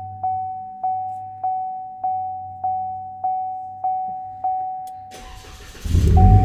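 A car's warning chime dings steadily, about every 0.6 seconds. About five seconds in, the Cadillac ATS's 2.0 L turbo four-cylinder is cranked and starts running, and the chime picks up again. This engine has a cylinder 4 misfire.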